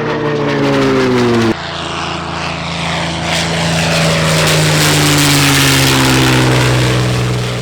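Propeller airplane flying past, its engine note sliding down in pitch as it goes by; about a second and a half in the sound cuts abruptly to another pass that again falls in pitch and fades near the end.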